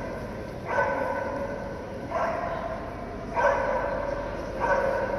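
A dog barking repeatedly, four short barks evenly spaced about a second and a half apart.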